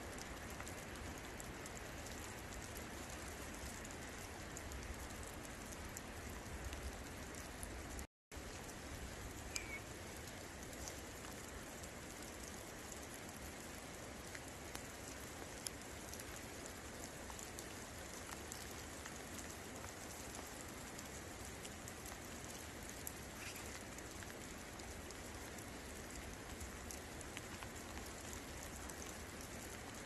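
Steady rain falling: an even hiss with scattered drop ticks. The sound cuts out for a moment about eight seconds in.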